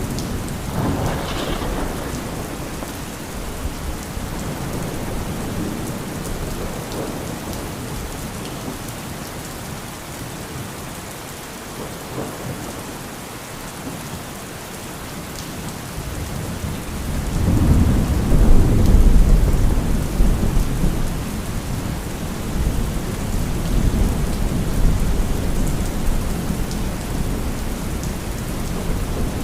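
Steady heavy rain with a thunderstorm: rolling thunder rumbles about a second in, then a louder, longer rumble starting about seventeen seconds in that trails off in further rolls.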